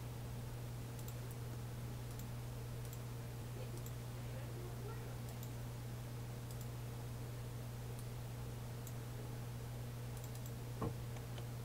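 Faint computer mouse clicks scattered over a steady low hum, with one louder short knock near the end.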